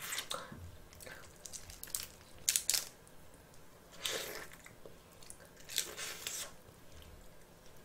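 Close-miked eating: several short sucking and biting noises with soft chewing between, as shellfish is eaten straight from the shell.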